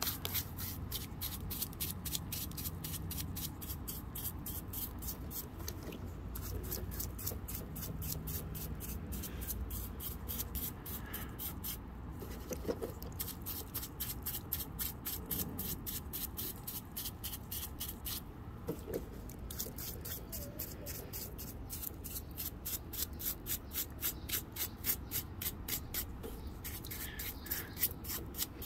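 Bristle paintbrush scrubbing a wet, muddy fossil rock, a quick rhythmic scratching of about five strokes a second, broken by a few brief pauses.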